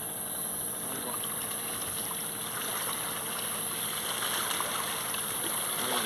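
Steady rush of river water, with a constant high-pitched hiss above it.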